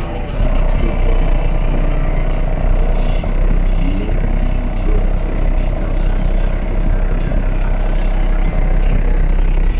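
Loud bass-heavy music played through four 12-inch DC Audio Level 2 subwoofers in a hatchback, powered by a 2,000-watt Skar RP2000 amplifier, with a deep, steady bass note dominating throughout.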